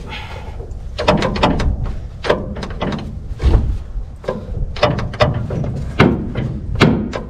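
Gear shift lever and linkage of a 1952 Oren fire truck's five-speed transmission being forced back and forth, making a run of irregular metal clunks and rattles. The transmission is locked up.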